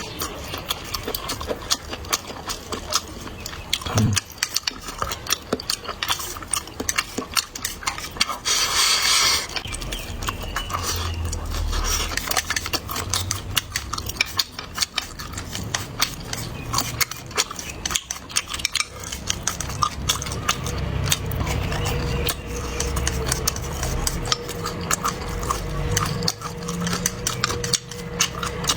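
Close-up eating sounds: chewing with frequent small clicks and taps of utensils against dishes, and a brief hiss about nine seconds in.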